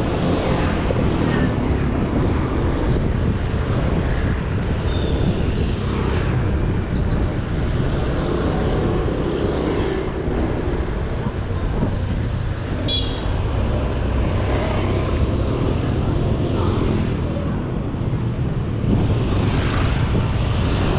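Bicycle tyres rolling on a road: a steady rumble heavy in the low end, mixed with passing traffic. A brief high chirp sounds about two-thirds of the way through.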